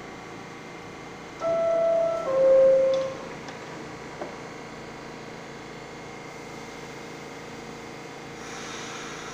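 New York City subway car's door-closing chime: two descending tones, ding-dong, the signal that the doors are about to close. It sounds over the steady hum of the train standing in the station.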